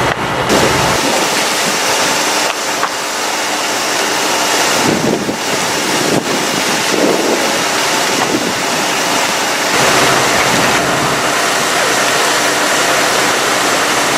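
Steady rushing noise of a large building fire being fought with a water jet, with a fire engine's engine running beneath it. The sound changes abruptly several times.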